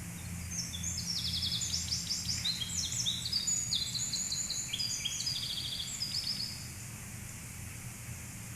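Songbird singing a long run of rapid, high, trilled phrases that overlap one another, stopping after about six seconds, over a steady low engine hum.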